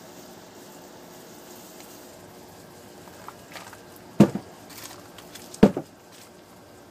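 Two loud, dull knocks about a second and a half apart, the first about four seconds in, with a few small ticks before them, over a faint steady hiss.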